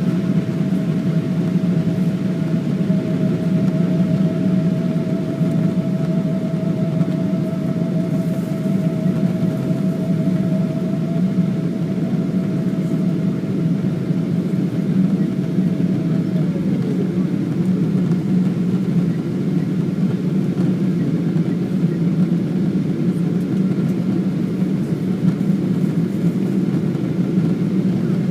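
Boeing 777-200ER jet engines heard from inside the passenger cabin: a steady, even drone. A higher hum runs over it and drops in pitch about sixteen seconds in.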